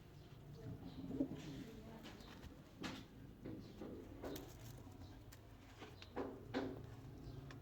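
Homing pigeons cooing, with several short sharp sounds mixed in.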